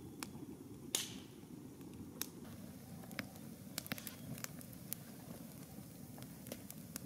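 Campfire of burning logs crackling: a steady low rush of flame with frequent sharp pops and snaps, one louder pop about a second in.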